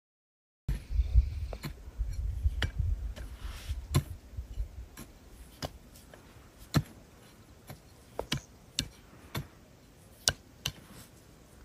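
Irregular sharp clicks and taps, roughly one every half second to a second, with a low rumble under them during the first few seconds.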